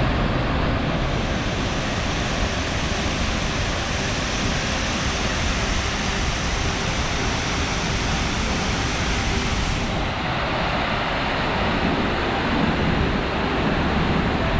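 Rainbow Falls, a 150-foot waterfall, rushing steadily: an even wash of falling water with no let-up. A brighter hiss on top comes in about a second in and stops abruptly about ten seconds in.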